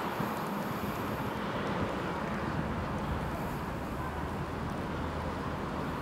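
Steady low engine drone over a broad background rush of outdoor noise.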